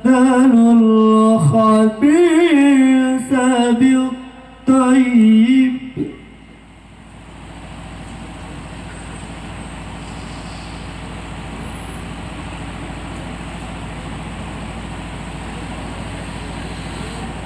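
Melodic Quran recitation by a single voice: long held, ornamented notes that waver in pitch, ending about six seconds in. A steady hiss of background noise follows until the end.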